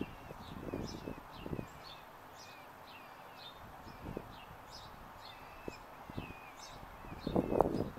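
Small birds chirping over and over, in short falling chirps, with a few soft rustles close by and a louder burst of rustling near the end.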